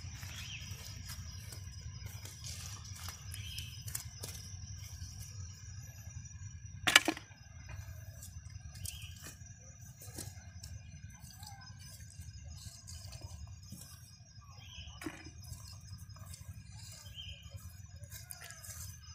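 Rustling and small clicks of a wet cast net being picked over by hand on grass as small fish are taken out, with one sharp knock about seven seconds in. A faint steady high tone runs underneath.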